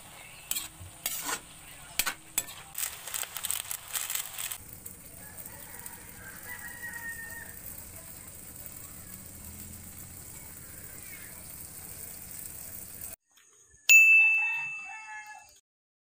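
A metal spatula clicking and scraping against an aluminium pan as squid and glass noodles are stirred and fried, for about the first four seconds. Near the end a single loud bell-like ding rings out and fades.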